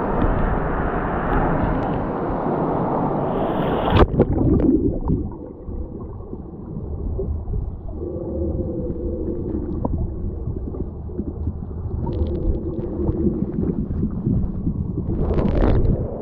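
Waterfall rushing into a deep river pool. About four seconds in, the camera plunges underwater with a splash and the rush turns to a muffled low rumble. A brief splash as it breaks the surface near the end.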